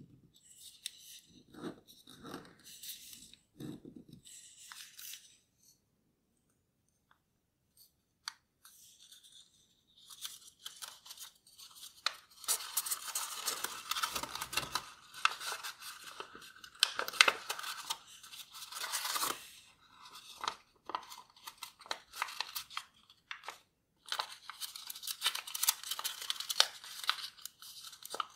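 A sheet of paper being folded by hand, rustling and crackling as it is creased, opened out and pressed flat. The sound is sparse at first, almost stops for a few seconds, then runs nearly without a break from about ten seconds in.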